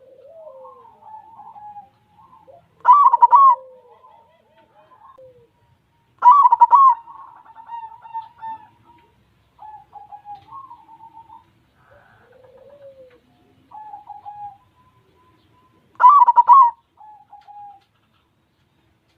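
White zebra dove (perkutut) cooing: three loud coo phrases about 3, 6 and 16 seconds in, with softer cooing notes in between.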